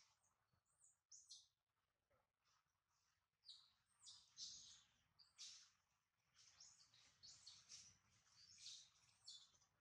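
A string of short, high-pitched chirping calls in irregular bursts, picking up from about three and a half seconds in.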